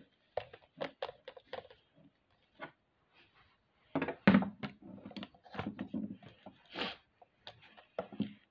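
Hands handling plastic toy figures and packaging: scattered short knocks, clicks and rustles, with a quiet gap of about a second near the middle.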